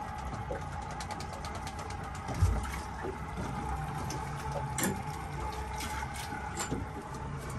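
Outboard motor of a small fishing boat running steadily at slow trolling speed, with light ticks and knocks on board, the loudest about two and a half seconds in.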